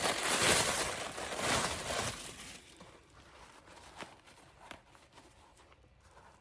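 Rustling and crinkling of packaging as the second sneaker is taken out and handled, fading out after about two seconds. A couple of light taps follow.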